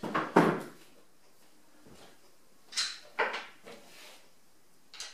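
Knocks and clunks of air rifles and fill gear being handled on a wooden table: two thumps near the start, a sharper click and two more knocks around three seconds in, and another knock at the end.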